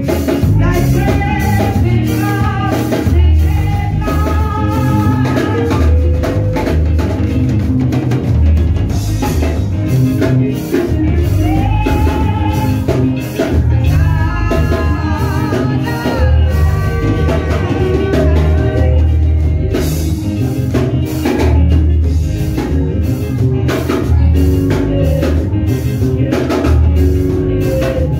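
Live church worship music: singing over a drum kit and keyboard with a strong, steady beat.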